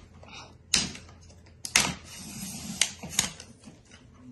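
Tripod leg flip-locks being snapped open: four sharp clicks, the last two close together, with a light scraping in between as a leg section is slid out.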